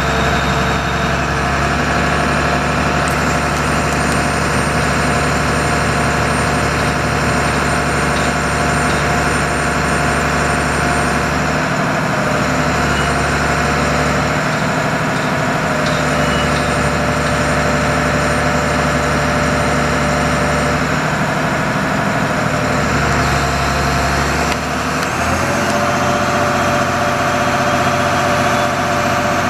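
Ford F800 truck's 6.6-litre six-cylinder diesel engine idling steadily. About 25 seconds in, its note shifts slightly.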